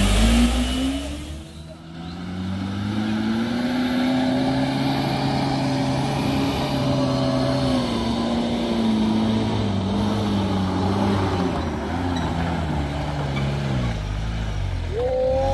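Mitsubishi cab-over pickup's engine pulling steadily under load up a steep, rough incline. Its pitch slowly rises, then gradually falls as the climb goes on. In the first couple of seconds there is a louder burst of heavy-truck engine noise before a cut.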